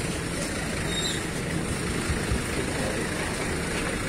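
Idling vehicle engines, a steady low rumble with an even background noise around it.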